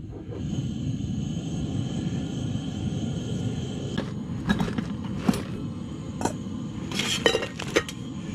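Coleman camp stove burner running with a steady low rumble that comes up about a third of a second in. From about four seconds in, a handful of short light clinks and knocks.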